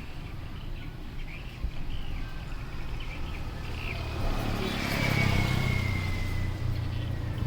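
A motor vehicle passing: a low engine rumble swells about halfway through, with a high whine that slowly drops in pitch as it goes by.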